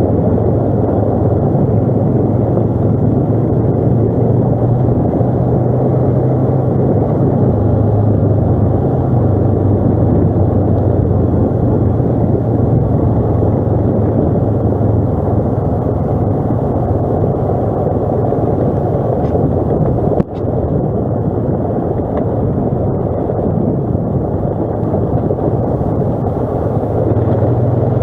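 ATV engine running steadily while riding, a low drone that rises and falls slightly with the throttle, with one sharp knock about twenty seconds in.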